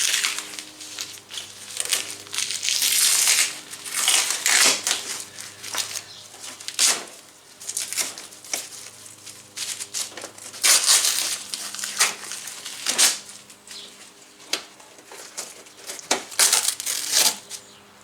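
Plastic car bumper cover being handled and pushed back onto its mounting clips, scraping and crackling in irregular bursts, over a faint steady hum.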